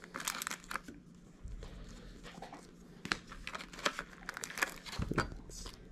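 Clear plastic blister packaging from a Pokémon card theme deck crinkling and crackling in irregular bursts as it is handled and pried apart, with a dull thump on the table about five seconds in.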